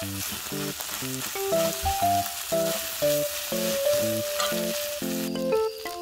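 Fried rice with dumplings sizzling on a hot griddle pan as a spoon stirs it. The sizzle cuts off abruptly near the end. Light background music with short plucked notes plays underneath.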